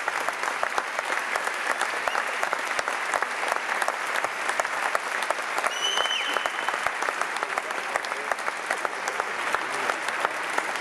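Concert audience applauding steadily: dense, continuous clapping from many hands after a song ends. A brief high tone cuts through about halfway.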